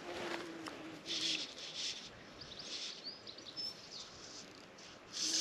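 Outdoor ambience: rustling breeze noise that comes and goes in bursts, with a few brief, high bird chirps around the middle.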